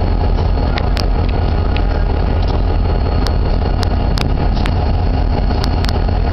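Wind buffeting the camcorder microphone: a steady, loud low rumble, with a dozen or so sharp clicks scattered through it.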